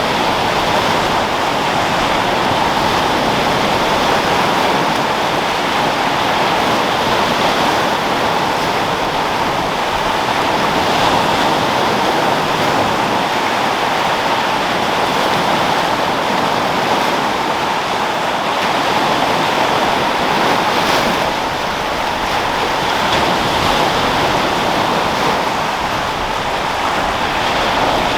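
Sea waves rolling and breaking on a rocky shore as a steady wash of surf that swells and eases gently, with wind.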